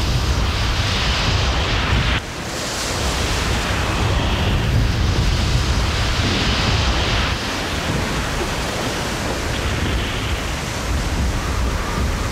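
Rushing, churning water with a deep low rumble, as of a torrent or flood surge. It drops out sharply about two seconds in and quickly builds back.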